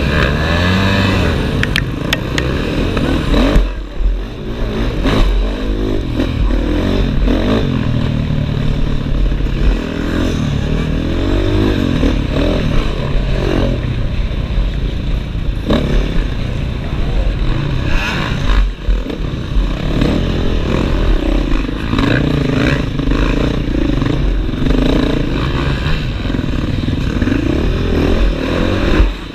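Enduro dirt bike engine revving up and easing off over and over with the throttle as the bike is ridden over a dirt course, heard close-up from a camera mounted on the bike's front.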